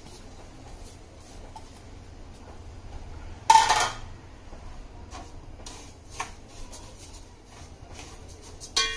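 Kitchen utensils knocking against a large aluminium cooking pot: one loud metal clank about three and a half seconds in, then scattered light clinks as a perforated steel ladle works in the pot, and a ringing clink near the end. A low steady hum runs underneath.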